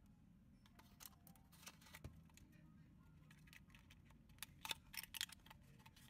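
Faint handling of a small cardboard box: light taps and scrapes, with a few sharper clicks of the paper flap being worked open about three quarters of the way through.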